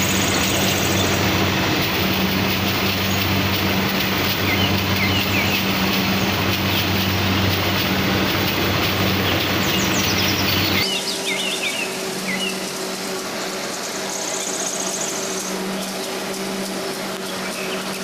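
Rice combine harvester's engine running steadily close by, a low drone. About eleven seconds in the sound changes abruptly to a quieter, higher-pitched hum.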